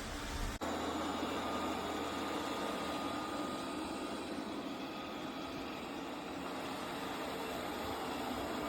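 Tapo RV30 Max Plus robot vacuum running: a steady whirring hum of its suction motor, broken by a brief drop-out about half a second in.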